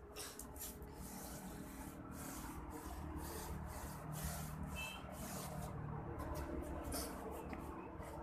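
A paintbrush scrubbing paint onto a rough, cracked plaster wall in repeated scratchy strokes, over a low background rumble.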